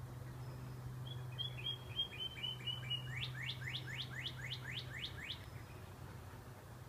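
A songbird sings one phrase: about a second in, a quick run of about seven short notes, then about nine fast downward-sliding whistles. A steady low hum runs under it.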